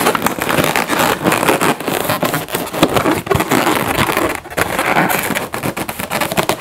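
Inflated latex twisting balloons rubbing and squeaking against each other as a gray 260 balloon is pushed through the middle of a four-bubble cluster, a dense run of short, sharp rubs and squeaks.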